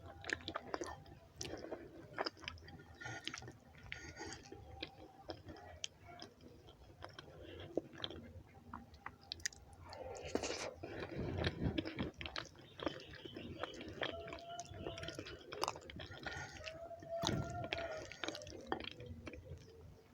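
Close-miked chewing of rice and beans: soft wet smacks and short mouth clicks throughout, busiest around the middle.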